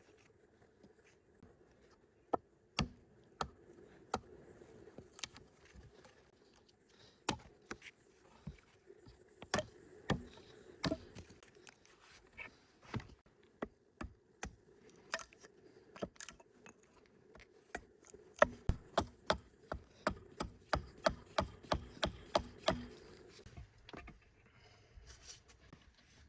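A series of sharp knocks and taps, scattered at first, then a quicker, fairly even run of about two to three a second that ends a few seconds before the close.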